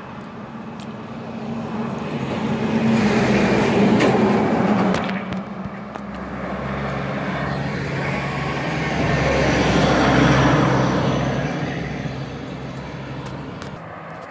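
Two road vehicles driving past one after the other, each swelling and fading as it goes by, the first about four seconds in and the second about ten seconds in. A low engine hum runs under the tyre noise.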